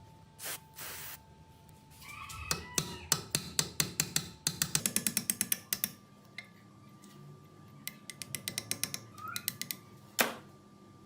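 Hand-tool work on a small part: runs of sharp clicks and taps, at one point a quick train of about ten a second, with short squeaks and a brief hiss about half a second in, then a single louder click near the end.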